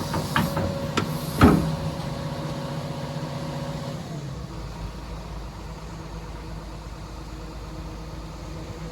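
Komatsu PC210 crawler excavator running: a few sharp knocks and clanks in the first second and a half, the loudest about a second and a half in, over a steady engine hum that turns lower and quieter about four seconds in.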